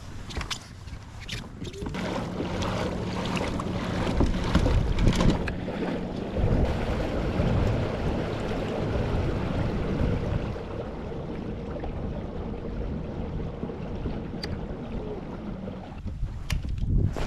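Kayak under way, with a steady motor hum that shifts higher partway through, over rushing water and wind buffeting the microphone. A few sharp ticks come near the end.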